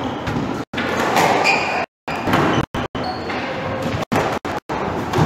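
Squash rally: the ball cracking off rackets and thudding against the court walls, with players' footsteps on the wooden court floor, echoing in the hall.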